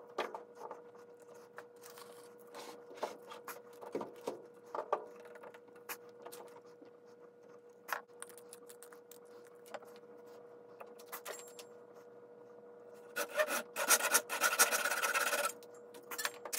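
Light scattered clicks and taps as the glue bottle and wooden toothpicks are handled. About thirteen seconds in, a flush-trim saw rasps rapidly back and forth for about two seconds, cutting the glued toothpick plug flush with the end grain of the board.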